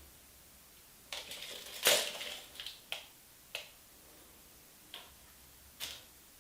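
A handful of light, irregular clicks and taps, with a brief rustle and the loudest click about two seconds in: a tape measure and a plastic handle being handled against an aluminium screen frame on the bench.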